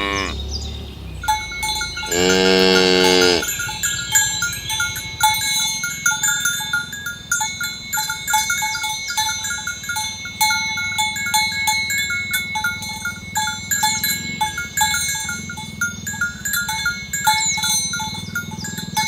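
A cow moos once, a single low call lasting about a second, about two seconds in. After it comes a run of short bell-like clinks at two fixed pitches, a few a second, as of bells on the moving cows.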